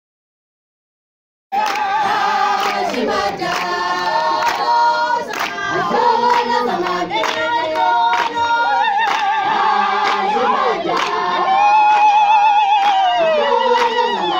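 A group of girls singing a cappella in chorus, with hand claps keeping time; the singing starts after about a second and a half of silence.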